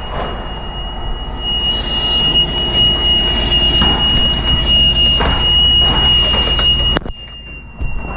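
A steady high-pitched whistle sounds continuously over the hiss of a fire hose nozzle spraying water, with a low rumble beneath. The spray cuts off suddenly about seven seconds in, while the whistle carries on.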